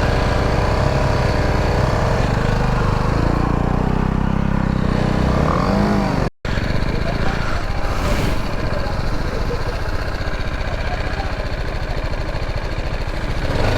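Motorcycle engine running as the bike is ridden over rough ground. The sound cuts out abruptly for a moment about six seconds in, then carries on rougher and noisier.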